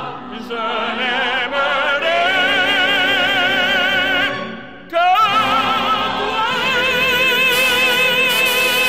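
Background music: a singer holding long notes with strong vibrato over an instrumental accompaniment, with a short break about four and a half seconds in before the next phrase.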